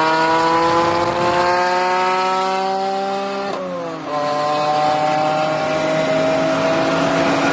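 BMW Z4 M's S54 naturally aspirated 3.2-litre straight-six exhaust pulling hard in one gear, its note climbing steadily. About three and a half seconds in, the revs drop for a manual upshift, then the engine pulls again, climbing once more in the next gear.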